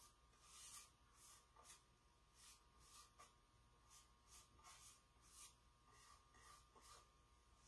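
Faint, soft swishes of a small paintbrush stroking paint onto a wooden surface, in short irregular strokes about two a second.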